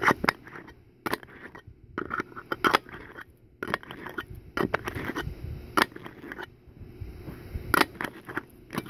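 Zinc metal herb grinder being twisted back and forth, its teeth scraping and crunching through dried herbs in a run of irregular clicks and scrapes.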